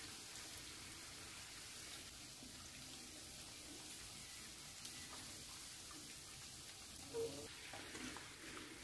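Faint steady sizzle of chicken pieces deep-frying in hot oil, with a whisk stirring a thin sauce in a pan during the second half. There is a brief louder sound about seven seconds in.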